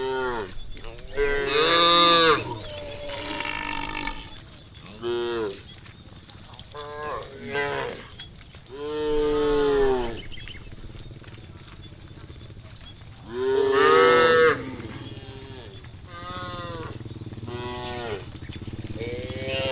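Cattle in a herd mooing, many calls from several animals, some overlapping, each one rising and then falling in pitch. The loudest calls come about two seconds in and again about two-thirds of the way through, over a steady high hiss.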